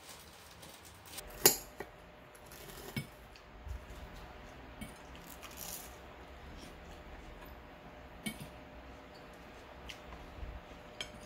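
Knives and forks clinking and scraping on ceramic plates during a meal, in scattered separate clinks, the sharpest about a second and a half in.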